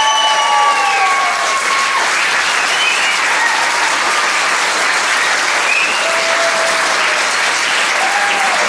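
Audience applauding steadily, with a few short whoops; a held high note fades out about two seconds in.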